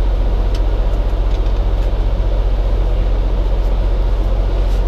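Semi truck's diesel engine idling steadily, heard from inside the cab as a low, even rumble, with a few faint clicks.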